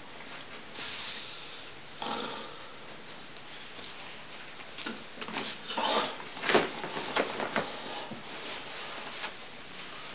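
Soft rustling, breathing and a few light knocks from a person moving about in a small room, the loudest bunched together around the middle.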